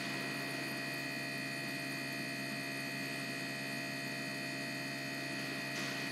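ASNU injector test bench running a static flow test, an injector held wide open spraying test fluid into a measuring cylinder: a steady electrical hum with a constant high whine.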